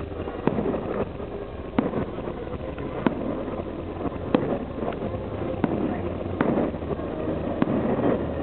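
Fireworks salute: about seven sharp bangs of bursting shells, roughly one a second, over a steady rumble of background noise.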